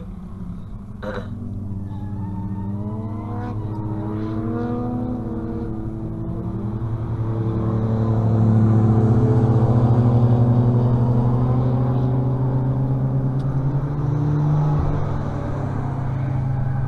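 A car engine running and being revved, its pitch rising and falling, growing loudest in the middle before easing off.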